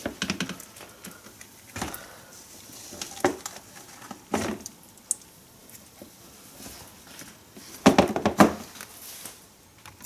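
Clear plastic storage-box lid and container being handled: scattered light knocks and plastic clatter, with a louder cluster of clatter about eight seconds in as the lid is set back on the box.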